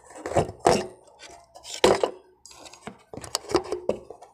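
Clinks and knocks of metal tools and parts being handled against an amplifier's chassis: several sharp, irregular hits, the loudest about two seconds in, then a quicker cluster near the end.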